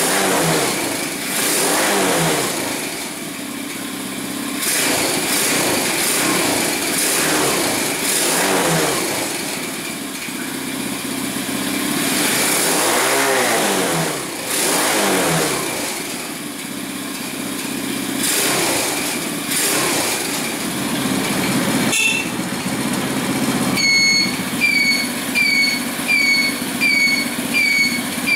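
Mini Jeep ATV's 150cc single-cylinder four-stroke engine revved up and down over and over, its pitch rising and falling in a series of blips. Near the end a quick run of short, high, falling beeps repeats about twice a second over the running engine.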